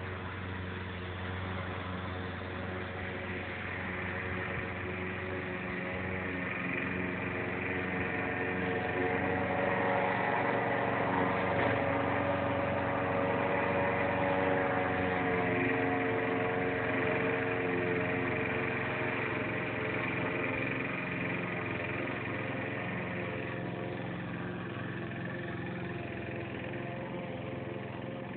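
Gas-powered walk-behind push lawn mower running steadily while cutting grass, getting louder through the middle and easing off again near the end.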